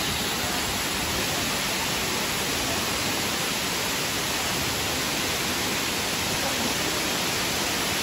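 A tall waterfall plunging into a pool, its falling water making a steady, even rush with no breaks.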